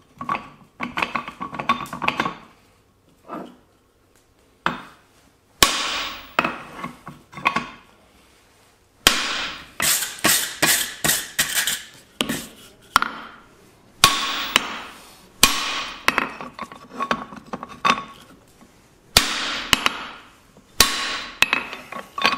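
Hammer blows on the top die of a guillotine fullering tool on an anvil, fullering a hot mild steel bar. The strikes come in quick runs of several blows with short pauses between, each blow a sharp metallic clang with a short ring.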